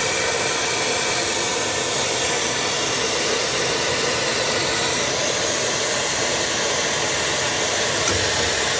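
Gas torch flame burning with a steady hiss, heating a long-tube exhaust header pipe so it can be bent clear of the starter.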